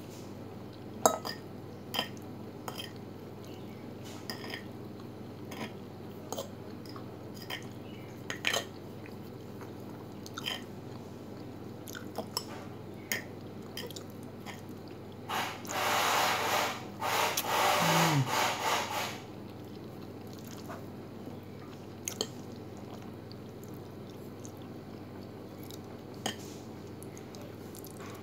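Eating sounds: a fork clicking and scraping against a plate and chewing, in short scattered ticks over a steady low hum. About midway comes a louder stretch of noise lasting about three seconds.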